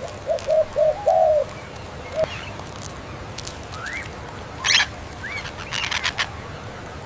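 Birds calling: a quick run of short, low cooing notes like a dove's, the last one longer, about a second in, then scattered high chirps and short rising whistles from other small birds later on.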